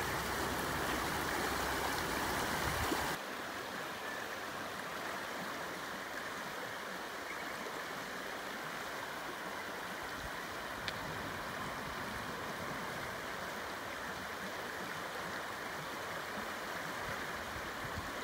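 Shallow, rocky river rushing steadily over riffles and small rapids. It is louder for the first three seconds, then drops suddenly to a steadier, quieter rush.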